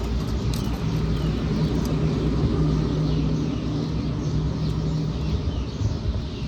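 A vehicle engine running, a steady low rumble with a hum that holds for a few seconds and then fades.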